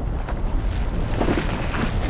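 Strong wind gusting: a steady noisy rush with a heavy low rumble, as a cartoon sound effect.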